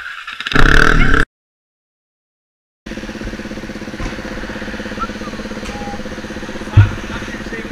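Motorcycle engine idling steadily, with one short low thump about seven seconds in. Near the start, a brief loud burst of noise cuts off into silence before the idle begins.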